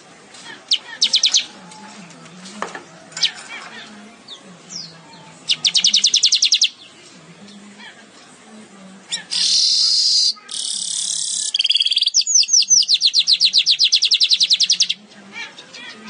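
Weaver bird (manyar) singing: bursts of rapid, high chattering trills, with a loud harsh wheezy buzz about two-thirds of the way through.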